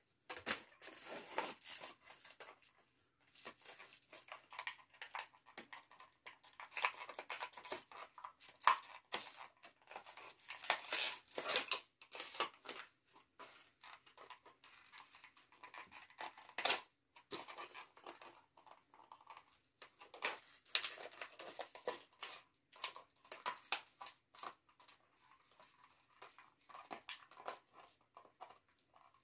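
A puppy chewing a crumpled plastic bottle: irregular crinkling and crackling of the plastic under its teeth, coming in quick clusters with short pauses.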